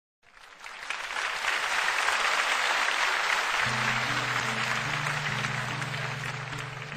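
Audience applause that swells up quickly and then slowly thins. A slow song's intro comes in under it about three and a half seconds in, with held low notes.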